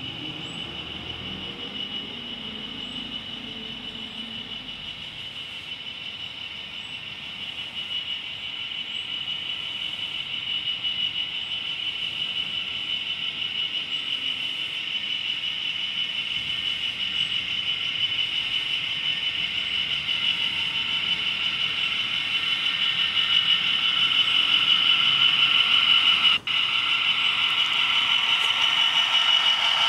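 OO gauge model Class 66 locomotive running with its train of autoballaster wagons: a steady high-pitched motor and gear whine with the rolling of the wheels on the rails, growing louder as the train comes closer. The sound drops out for an instant about 26 seconds in.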